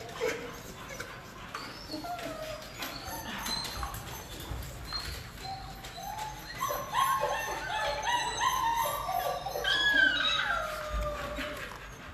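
Dogs in shelter kennels whining and yelping, with a burst of many overlapping high whines from about six seconds in until near the end.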